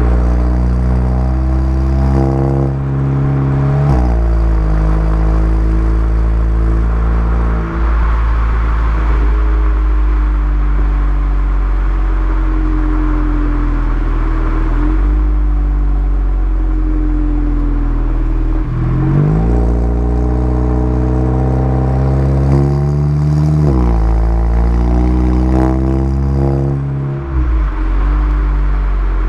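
Mk7 VW Golf GTI's turbocharged four-cylinder heard close at the tailpipe through a VWR Cup Edition exhaust while driving. The exhaust note climbs with the revs and drops sharply in pitch about half a dozen times, as at gear changes, with a few quick rising revs in between.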